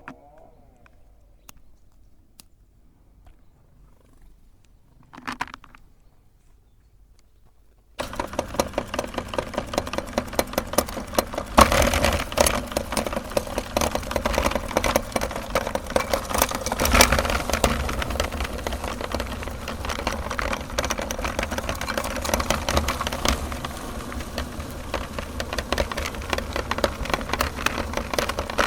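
Quiet handling clicks and a short knock, then about eight seconds in an electric meat grinder starts suddenly and runs steadily, with a dense rapid crackle as it grinds chocolate bars.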